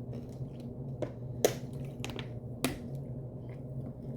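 Close-up eating sounds: a few sharp crunches from biting into crispy fried chicken wings, the loudest about a second and a half in, over a low steady hum.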